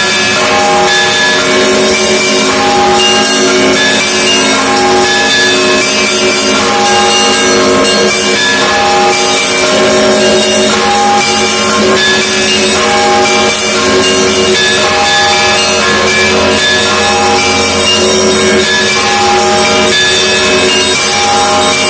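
Russian Orthodox church bells ringing a full peal: smaller bells struck in a repeating pattern over the sustained ring of larger bells, loud and close.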